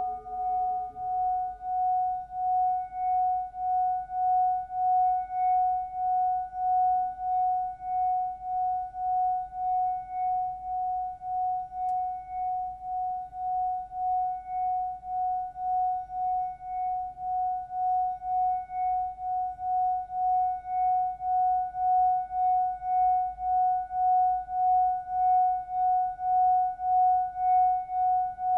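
Singing bowl sounding one sustained, steady tone that wavers in loudness about one and a half times a second, with a fainter, higher overtone above it. A few lower bowl tones fade out in the first two seconds.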